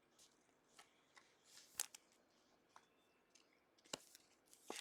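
Faint, scattered clicks and slides of trading cards being handled one after another, with near silence between them.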